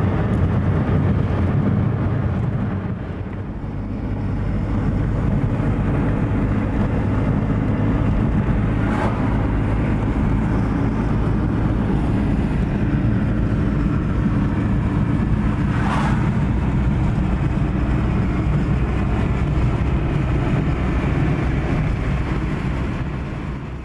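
Steady road and tyre rumble of a moving car, heard from inside the cabin at highway speed. The level dips briefly about three seconds in, then holds steady.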